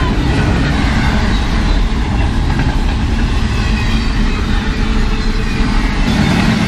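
A long train passing close by, its cars rolling past in a loud, steady rumble.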